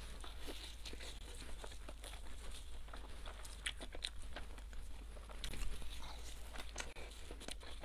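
A person biting into and chewing xuemian dousha, fried egg-white puffs filled with red bean paste and dusted with sugar: crunching and crackling of the fried crust and sugar, with scattered sharp clicks and wet mouth sounds.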